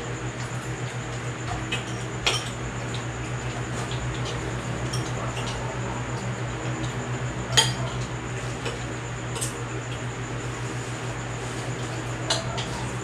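Spoons and forks clinking against ceramic soup bowls as people eat: a few scattered clinks, the sharpest about seven and a half seconds in, over a steady low hum.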